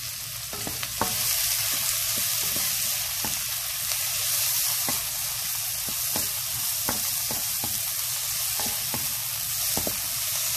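Sliced cabbage, carrots, bell pepper and onion sizzling in hot oil in a pan while being stir-fried with a wooden spatula, which knocks and scrapes against the pan again and again. The sizzle gets louder about a second in.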